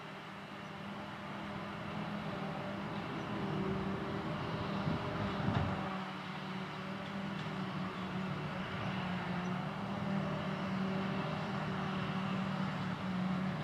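Claas Jaguar 870 self-propelled forage harvester chopping grass silage from the windrow, with a tractor and trailer running alongside: a steady machine drone with a low hum, growing a little louder over the first few seconds and then holding steady.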